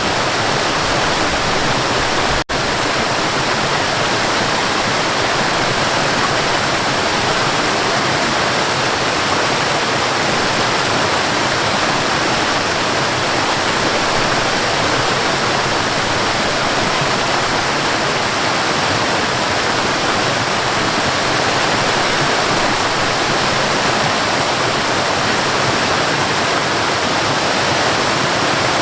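Waterfall: a steady, even rush of falling water, with a split-second break about two and a half seconds in.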